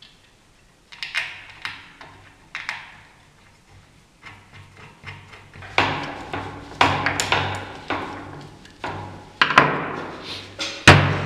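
Metal Murphy-bed pivot plate being worked with a screwdriver on a wooden workbench: irregular clicks, taps and scrapes of metal on metal and wood, growing busier after a few seconds, with one louder knock near the end.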